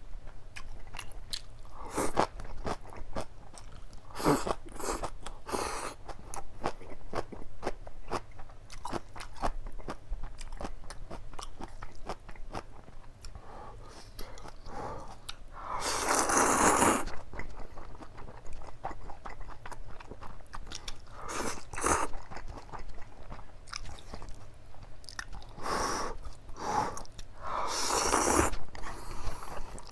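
Close-miked eating of black-bean sauce noodles: steady wet chewing and biting with crisp crunches, and a few louder bursts about a second long, around 16 and 28 seconds in.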